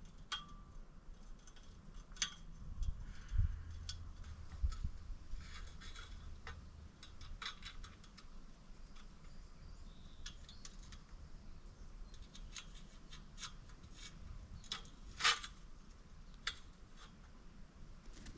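Scattered small metallic clicks and clinks, with one sharper ringing clink about fifteen seconds in, over a faint low hum that fades after the first several seconds.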